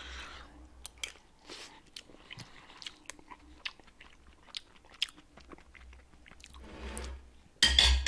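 Close-miked chewing of a mouthful of microwaved meatballs and couscous in tomato sauce: soft, wet mouth clicks and smacks, with no speech. Near the end a spoon clatters onto the plate.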